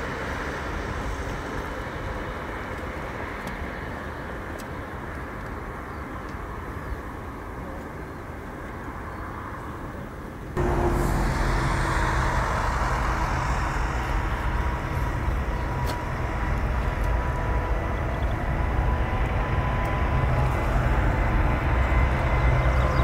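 Airbus A380's four Rolls-Royce Trent 900 turbofans running, a steady jet rumble. About ten seconds in the sound jumps louder, with a steady high engine whine that grows toward the end as the engines spool up for takeoff.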